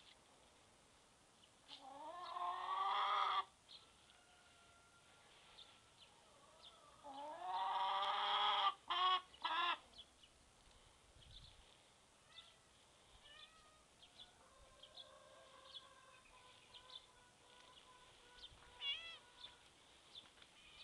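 Domestic hen singing: two loud, drawn-out calls, each rising in pitch at its start and lasting over a second, about two and seven seconds in, the second followed by two short clipped notes. Softer calls and chirps come after.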